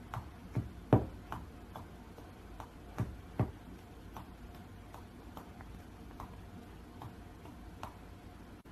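Faint, light ticks or taps, about two or three a second, with a few louder knocks in the first few seconds.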